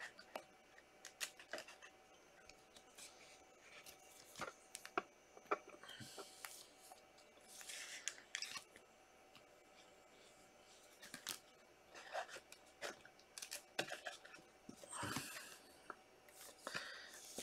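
Faint handling of trading cards and clear plastic card sleeves: scattered light clicks and ticks with a few short rustling swishes as cards are slid into and moved in their sleeves.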